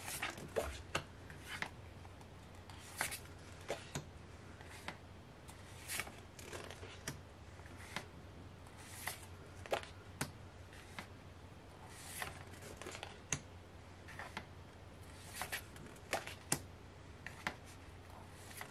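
A stack of large photo prints handled and flipped through one by one: repeated short paper slaps and slides, irregular at about one or two a second.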